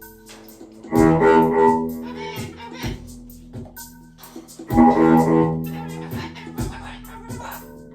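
Instrumental music with sustained low notes and sharp accents, swelling about a second in and again near the middle.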